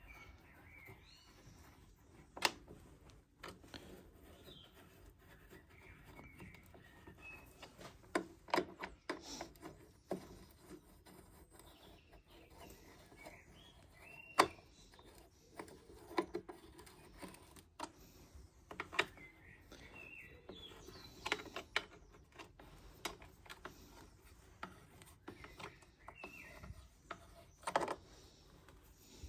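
Scattered clicks and knocks of tools and plastic parts being handled as a Stihl leaf blower's starter housing is refitted, with faint birds chirping now and then.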